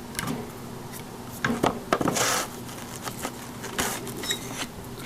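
Wooden blocks and tools being handled on a workbench: a few separate knocks and clunks and a short scrape.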